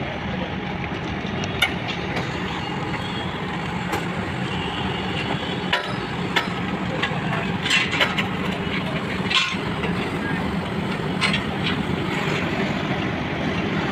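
Hi-rail work truck's engine running steadily with a low hum, with scattered sharp metallic clicks and knocks, most of them around the middle.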